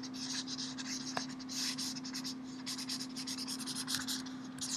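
A marker scratching across a drawing surface in quick, irregular strokes as lines and letters are drawn, over a steady low hum.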